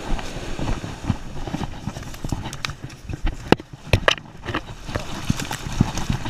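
Irregular knocks and thumps over the wash of shallow surf, as a shark is hauled by the tail through the breaking waves to be released. The sharpest knocks come a little past halfway.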